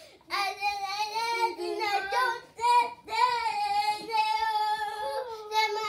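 A child's voice singing a melody in long held notes, with short breaks about halfway through.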